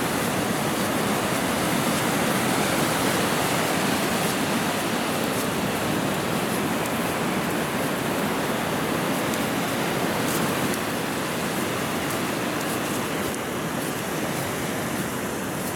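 Ocean surf breaking along the shore, a steady wash of noise that eases slightly near the end.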